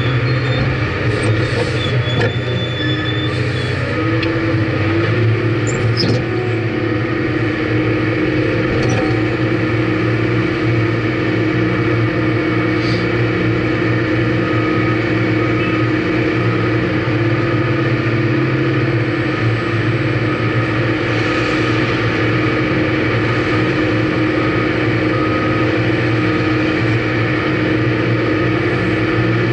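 Cat 615 elevating (paddle-wheel) scraper working: its diesel engine runs steadily under load while the elevator chains and flights churn soil into the bowl, with a few sharp clanks in the first several seconds.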